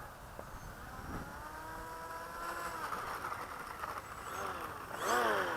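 Electric motor and pusher propeller of a small foam RC plane whining. The pitch creeps up through the middle, then drops steeply at its loudest near the end.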